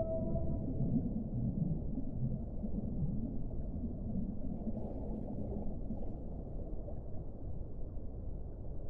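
Underwater whale recording: a steady low rush of sea noise, with faint low whale moans fading out over the first few seconds.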